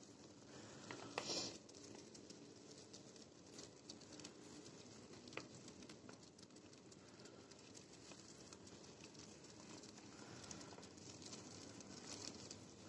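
Faint rustling and nibbling of many hamsters chewing mustard greens and shuffling through wood-shaving bedding, with a brief louder rustle about a second in.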